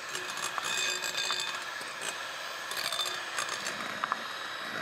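Electric hand mixer whipping egg whites and sugar into meringue in a glass bowl: the motor runs with a steady high whine over the churning of the beaters, with a few light clicks.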